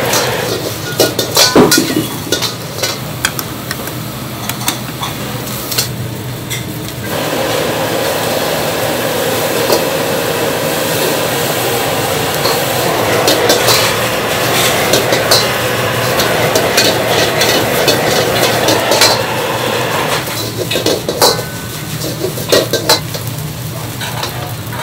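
A metal ladle clanks and scrapes against a wok as fried rice is stir-fried over high heat, with a steady sizzle. The clanks come thickest in the first six seconds and again from about twenty seconds in. In between, the sizzle is louder and denser, over a steady low hum.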